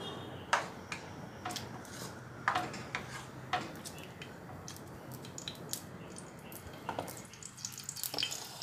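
Jackfruit curry in coconut milk bubbling in a non-stick pot, with a metal spoon stirring it and clinking against the pot several times, mostly in the first few seconds.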